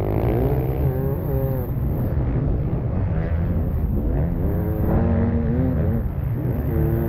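Beta 300 RR two-stroke enduro bike engine revving hard under racing load, its pitch rising and falling several times with the throttle, over a heavy low rumble.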